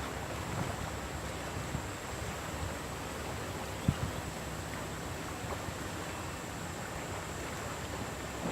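Steady rushing of a fast-flowing river, with wind on the microphone. A single thump about four seconds in.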